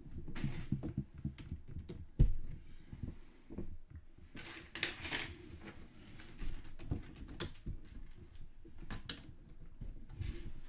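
Small plastic Lego pieces clicking and knocking as they are handled and pressed onto the model, with a sharp click about two seconds in. A brief rustle comes between about four and five seconds in.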